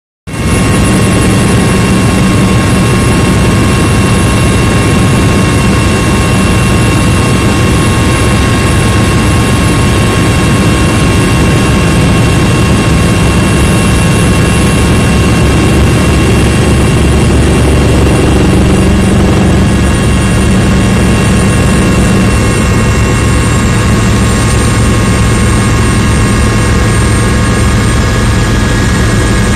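Helicopter cabin noise on the approach to an offshore rig: a fast, steady rotor beat low down under a constant high engine whine, loud throughout.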